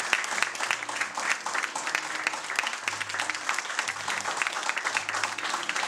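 A small seated audience applauding, many hands clapping steadily and densely.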